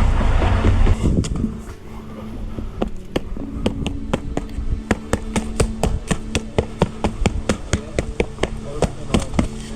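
A loud low rumble for the first second or so, then rapid, even tapping strikes, about three to four a second, over a steady low hum.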